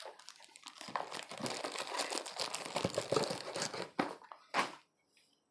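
Crinkling and rustling of product packaging being handled close to a clip-on lapel microphone, a dense run of fine crackles. About four seconds in come two short clicks, and then the sound cuts out completely.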